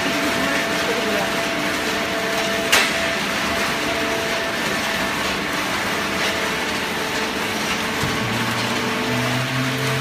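Automatic horizontal cardboard baler running: a steady machine hum and noise with a single sharp clank about three seconds in, and a deeper hum setting in near the end.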